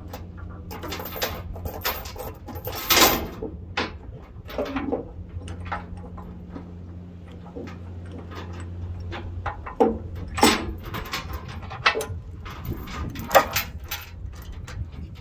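Steel tie-down chain clanking and rattling as it is handled and hooked into a load binder, in a run of sharp metal clinks, the loudest about three, ten and thirteen seconds in. A low steady hum runs underneath.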